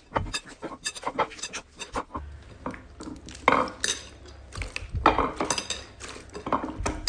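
Slime being squished and poked by hand: a dense, irregular run of sticky clicks, pops and crackles.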